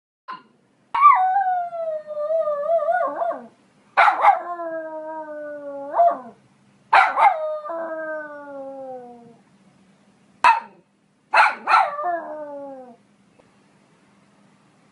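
A poodle barking and crying: sharp barks that run into long, drawn-out cries sliding down in pitch, four of them, with a lone bark and a quick double bark before the last one.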